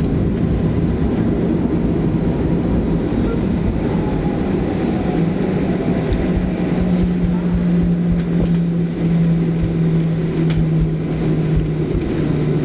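Cabin noise of a Boeing 737-700 rolling on the ground after landing: a steady low rumble from its CFM56-7B engines and the airframe. About five seconds in, a steady low hum comes in on top of it and drops slightly in pitch near the end.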